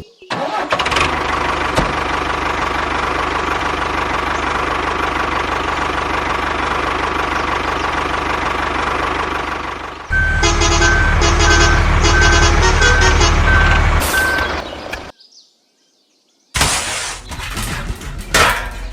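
Vehicle engine running steadily, then cut to a louder rumbling engine with a high beep repeating about twice a second. The sound drops out for about a second and a half, then another engine sound comes in.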